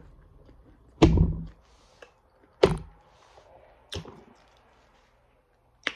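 Four sharp thunks or knocks spread over several seconds, the first, about a second in, the loudest, with a deep thud.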